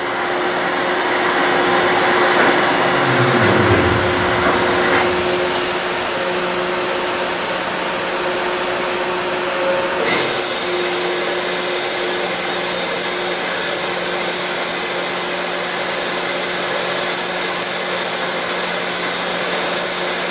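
Hydraulic machinery of a ferry's internal car-deck ramp running as crew lower the ramp: a steady mechanical drone with hum tones. About ten seconds in, a high hiss starts and the sound gets louder.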